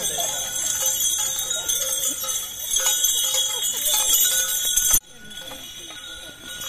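Bells jingling and ringing steadily over murmuring voices. The sound cuts off abruptly about five seconds in and is quieter after that.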